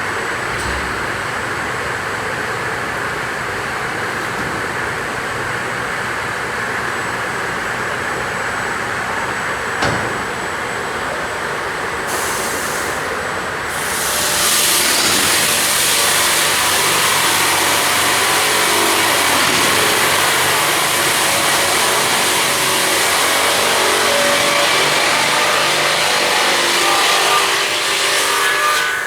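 SD400S two-shaft beam-making sawmill running steadily with a single click a little before the middle. About halfway in it grows louder, with a high rushing hiss, as it saws a log, then drops back just before the end.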